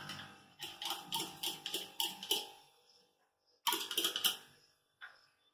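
A spoon scraping and tapping inside a small cup to empty beaten egg into a mixing bowl: quick light ticks about five a second, in two short runs.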